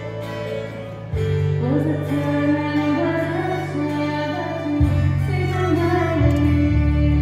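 Live wedding ensemble playing a slow, tender piece: a violin melody over sustained keyboard chords and acoustic guitar, with a woman singing. The low bass notes change about a second in and again near five seconds.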